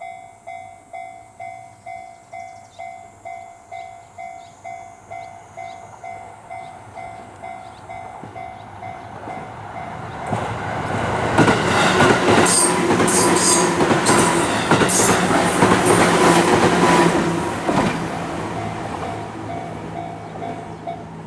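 A Japanese level crossing's warning bell dings about twice a second, then a JR Ryomo Line train passes over the crossing, its wheels clacking rhythmically over the rail joints, loudest in the middle and then fading. The crossing bell is heard again faintly near the end.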